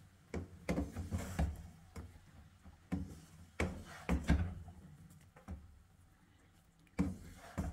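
Irregular knocks and clunks of cookware and utensils being handled, about a dozen spread unevenly over several seconds, the loudest ones a little past the middle and near the end.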